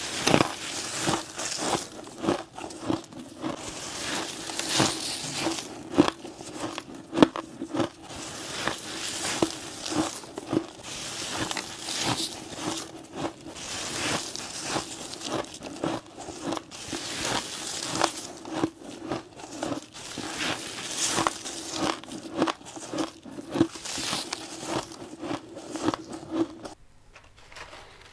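Crunchy bites into mouthfuls of crushed, powdery ice: crisp crunches in quick succession over a steady low hum. The crunching stops shortly before the end.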